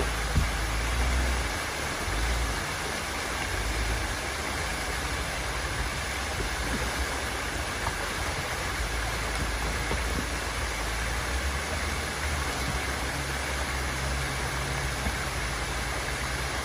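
Creek water cascading steadily over rock ledges, with the low rumble of a Jeep Gladiator's engine underneath as it climbs out of the crossing and drives off, the rumble swelling and easing.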